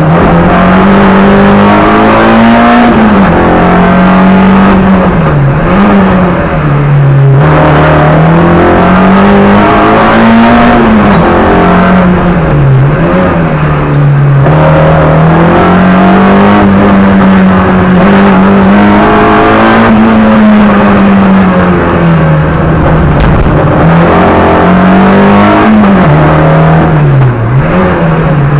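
Peugeot 106 race car's four-cylinder engine revving hard, loud inside the cabin. Its pitch climbs and drops again and again as the car accelerates, shifts and lifts off between sections of the course.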